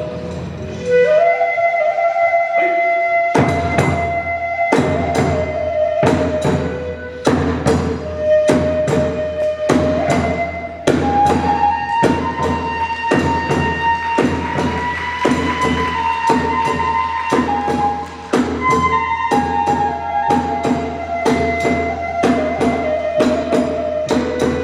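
Kagura hayashi: a high bamboo flute plays a held, wavering melody, at first almost alone. About three seconds in, a steady run of drum and hand-cymbal strikes joins it.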